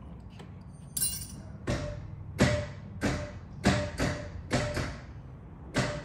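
A series of sharp metallic clacks, each with a brief ring, about one every half to two-thirds of a second, from a Barton short-throw shifter being worked by hand.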